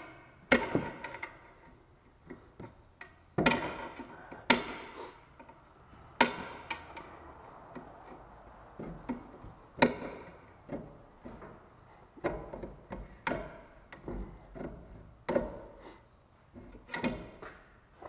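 Steel pry bar knocking and clanking against the front lower control arm and steering knuckle while prying down to free the lower ball joint: irregular metal knocks, a few of them ringing briefly.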